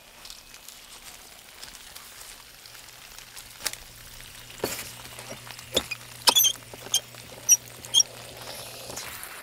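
Outdoor hose spigot being turned off by hand: the valve handle gives a series of sharp squeaks, about two a second, as it turns. Under it runs a faint low hum of water flowing through the hose, which stops as the valve closes.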